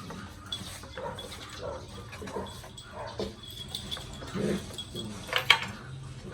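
Puppies play-fighting over a toy: short growls and grunts with scuffling, and one sharp loud knock about five and a half seconds in.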